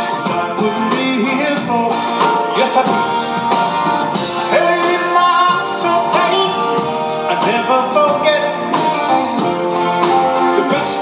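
Live band playing a slow pop ballad, a man singing the lead vocal over electric guitar and band.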